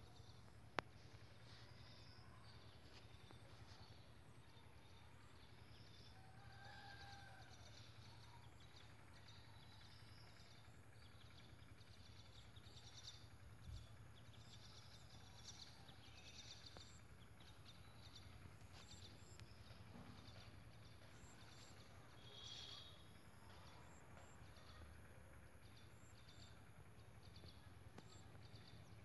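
Near silence: faint outdoor ambience with scattered faint high chirps and a single sharp click about a second in.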